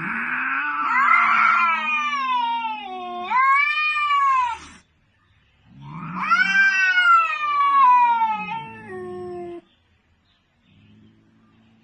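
Cat yowling: two long, drawn-out calls, each about four seconds, sliding up and down in pitch.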